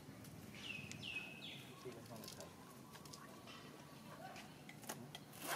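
Baby macaque giving three short, high squeaks about a second in, each dropping in pitch and then levelling off. A few sharp clicks follow near the end.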